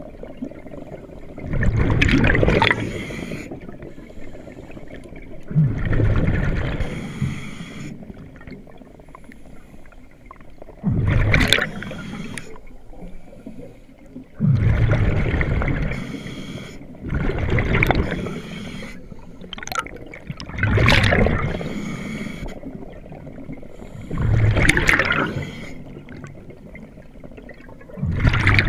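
A scuba diver breathing through a regulator underwater. Each breath ends in a rush of bubbles, about eight in all, every three to four seconds, with quieter gurgling between.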